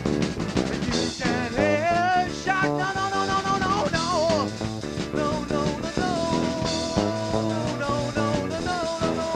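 Small rock band playing live in a rehearsal cellar: drums and electric guitar with a wavering melody line over them, poorly recorded.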